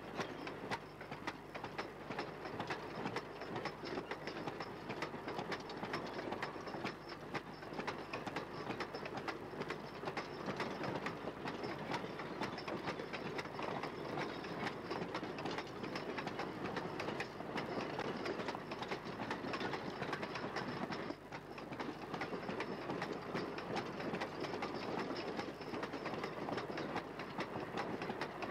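A train of coal hopper wagons rolling past, wheels clattering over the rail joints in a steady dense run of clicks. The sound dies away at the very end as the last wagons pass.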